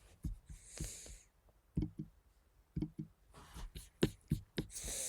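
Scattered light clicks and knocks, with two short hissing rustles, one about a second in and one near the end.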